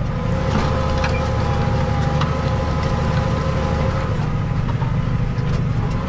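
New Holland tractor's diesel engine running steadily under load while ploughing, heard from inside the cab: a constant drone with a steady whine over it and a few faint knocks.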